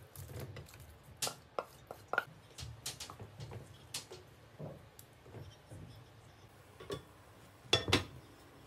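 Wooden spoon knocking and scraping against a bowl and pot as meatballs are tipped into curry, in a run of irregular clicks and taps. Near the end, two louder clinks as a glass lid is set on the pot.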